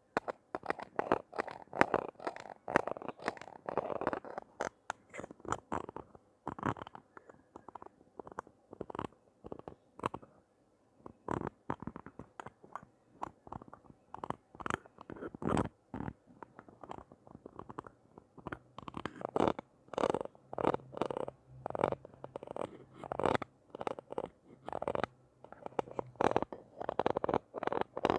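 Close-miked handling of toys and their packaging: irregular clicks, taps, crinkles and scratches in quick clusters, with short pauses between them.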